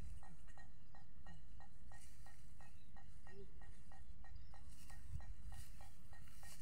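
Fishing reel being cranked to bring in a small hooked fish, ticking steadily about four times a second, with a low wind rumble on the microphone.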